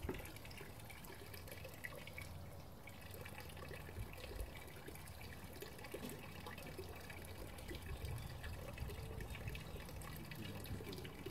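Water trickling and splashing from a homemade water ram pump into a drum, with a few faint knocks. There is no steady valve rhythm: the pump is not cycling on its own.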